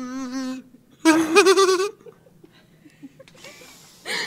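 Kazoo being played: a held buzzing note, then after a short pause a louder, wavering note lasting about a second.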